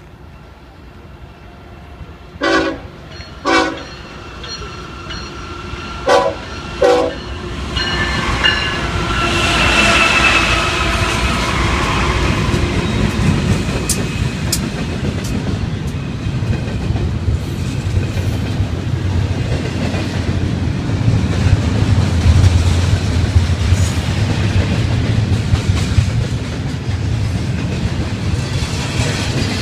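Approaching diesel freight train sounding four short horn toots in two pairs, then its locomotives passing close with a rising, loud rumble. After that comes the steady rumble and rail clatter of double-stack container cars rolling by.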